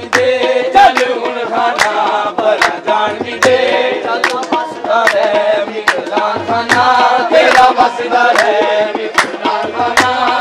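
Live qawwali: harmoniums and male voices carry a bending melody over a steady percussion beat, with sharp strikes about twice a second.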